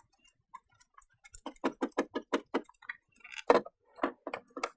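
Hard plastic clicking and knocking as an Audi A5 tail light cluster is worked off its clips by hand: a quick run of about eight clicks, then a few louder single knocks near the end.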